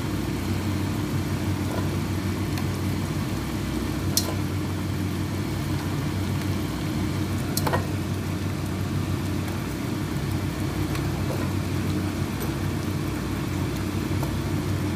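Steady low electric hum over a pan of chicken stew simmering on a gas stove, with a few light clicks from a wooden spatula against the pan.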